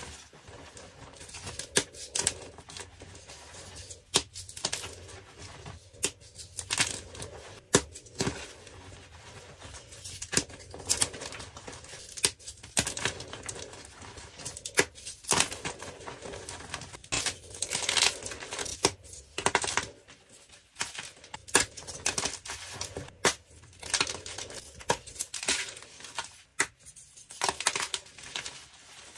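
Blocks of dyed gym chalk crushed and crumbled between bare fingers: irregular crisp crunches and crackles, with small chunks and powder falling onto a pile of chalk crumbs.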